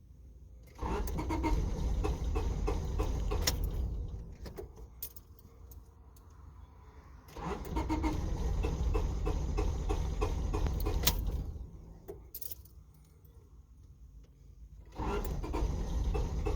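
1996 Honda Civic's four-cylinder engine cranking on the starter three times, each try lasting a few seconds with a steady rhythmic chug, and not catching. This is the car's no-start after a long drive and cool-down.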